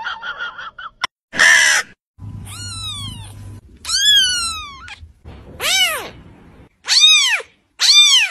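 Very young kitten mewing repeatedly: about five high, thin mews, each rising and then falling in pitch, starting about two seconds in. Before them there is a short, loud burst of noise about a second and a half in.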